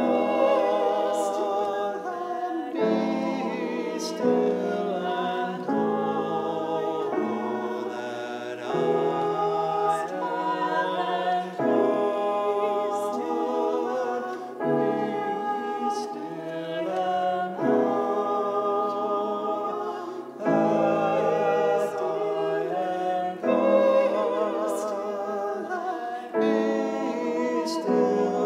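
A man and a woman singing a slow worship song together in harmony, with vibrato, phrase by phrase with short breaths between phrases.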